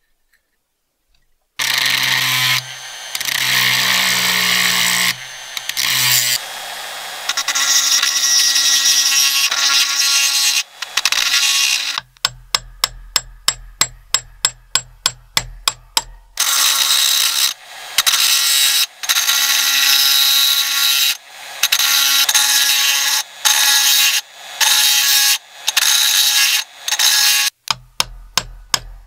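Metalwork on the small rusty steel housing of an antique battery tester: stretches of harsh, sustained tool noise alternate with runs of quick, light metallic taps, about four or five a second, as a punch held on a rivet is struck.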